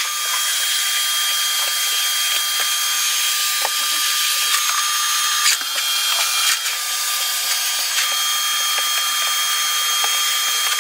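Vacuum running steadily with a high-pitched motor whine while the drywalled ceiling is vacuumed, with a few light clicks and knocks over it.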